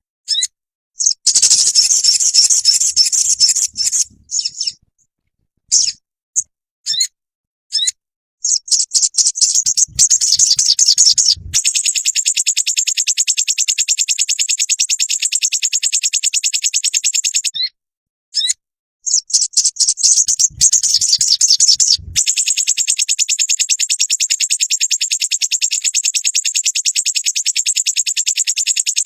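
Sogon bird song: high-pitched chirps in short separate phrases, then long, very rapid, even trills in two stretches with a brief break between them.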